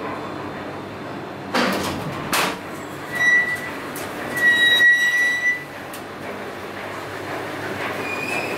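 KONE inclined elevator arriving and opening its sliding doors: two clunks about two seconds in, then two high electronic beeps, a short one followed by a longer one, as the doors slide open. A steady background noise runs underneath.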